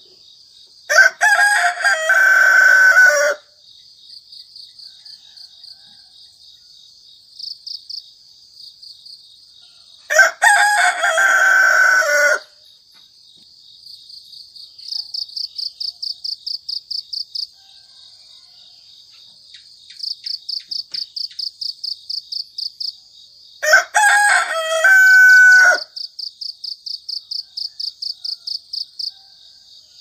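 A rooster crowing three times, each crow about two seconds long, over the steady, rapid chirping of crickets.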